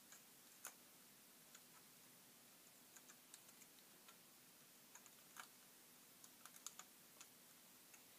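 Near silence with faint, irregular small clicks and ticks, from rubber loom bands and a plastic loom being handled as a honeycomb bracelet is worked off it.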